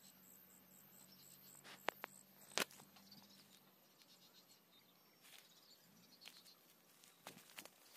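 Faint field ambience: an insect chirping high and fast, about four chirps a second, fading out after two or three seconds, with a few sharp clicks about two seconds in.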